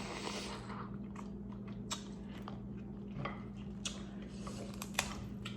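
Close-up eating of seasoned crab legs: chewing and mouth sounds with a handful of sharp clicks and cracks scattered through, over a steady low hum.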